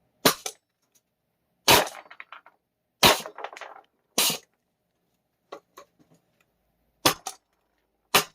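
Gas-powered FLAK 10 airsoft gun, firing 10 BBs a shot: six sharp shots at irregular intervals, several followed by a brief rattle, with two fainter clicks in the pause between the fourth and fifth shots.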